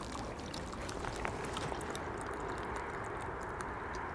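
Small clicks and taps from a vacuum flask being handled, its stopper being turned, over a steady low background noise.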